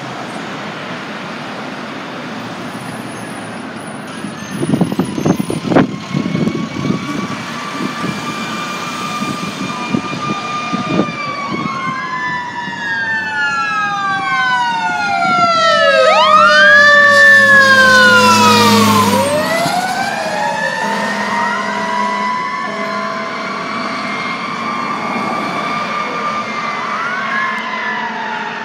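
Fire engine's siren wailing up and down, growing louder as the engine approaches, loudest about two-thirds of the way through, then dropping in pitch as it passes. Road traffic runs underneath, with a run of heavy low knocks around five seconds in.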